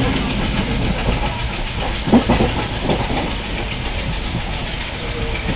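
Train running as heard from inside a passenger coach pulling away: the Alco WDM3D diesel locomotive's engine chugging under acceleration, mixed with the wheels clicking over the track. A short louder knock comes about two seconds in.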